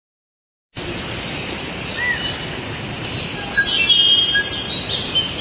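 Forest ambience: birds chirping and calling, short rising and falling whistles, over a steady hiss, starting suddenly about a second in.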